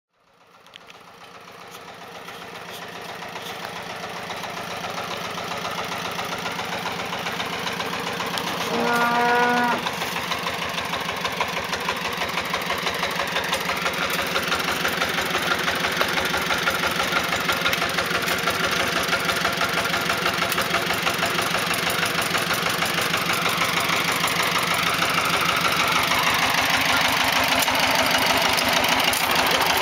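Korean walking tractor (power tiller) towing a trailer, its single-cylinder diesel engine chugging with a rapid, even knock that grows steadily louder as it approaches. About nine seconds in, a steady pitched tone sounds over the engine for about a second.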